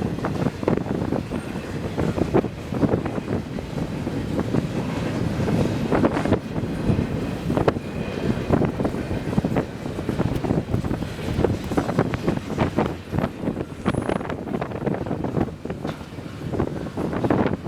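Heavy wind buffeting the microphone in irregular gusts, over the rumble of a passing double-stack intermodal freight train.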